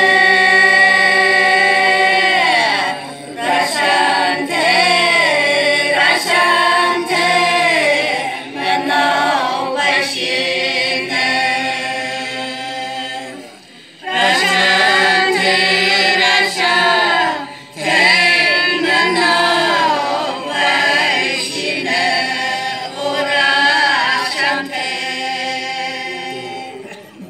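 A group of women singing a traditional song together without accompaniment, in long held notes, with a short break about halfway through before the next phrase.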